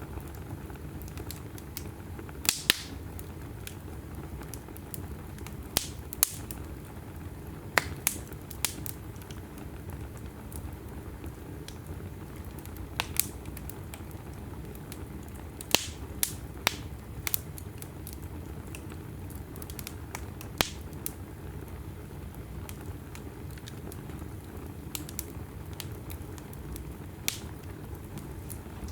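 Wood logs burning in a fireplace: a steady low rustle of flames with irregular sharp crackles and pops, some coming in quick pairs.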